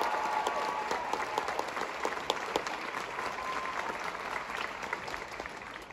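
Theatre audience applauding an actress's entrance, the clapping slowly dying away.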